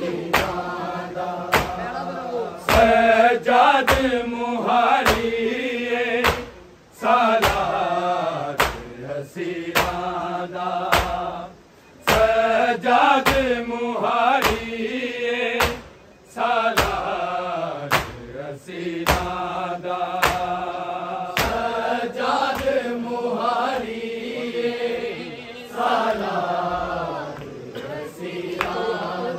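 Men's voices chanting a noha, a Shia mourning lament, in unison, breaking off briefly between lines. A steady beat of sharp strikes keeps time under the chant, typical of matam, hands struck on the chest.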